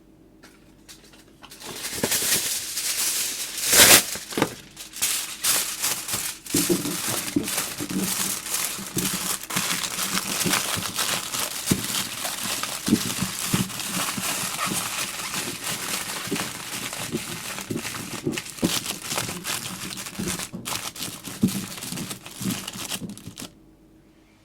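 Aluminium foil being crinkled and folded by hand, a dense run of crackling and sharp crinkles with one loud crunch about four seconds in; it stops abruptly near the end.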